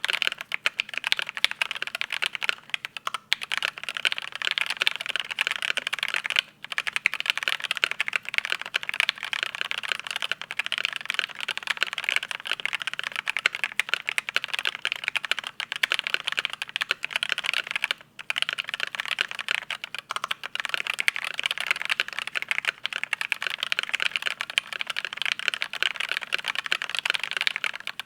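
Continuous fast typing on a custom mechanical keyboard with lubed and filmed Durock Mauve linear switches, in a clear polycarbonate Think6.5 case with a 4 mm integrated polycarbonate plate and PBT keycaps. The typing breaks off briefly about six and eighteen seconds in.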